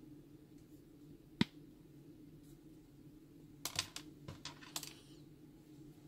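Cutter jaws of a Commercial Electric crimping tool snipping through a wire: one sharp snap about a second and a half in. A brief cluster of small clicks and taps follows past the middle.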